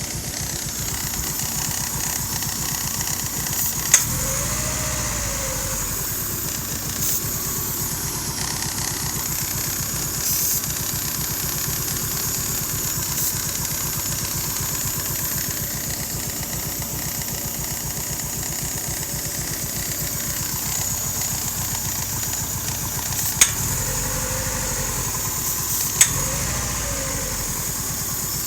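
2001 Hyundai Tiburon's four-cylinder engine idling steadily while it has a vacuum leak. Its note swells briefly and settles twice, with a few sharp clicks over it.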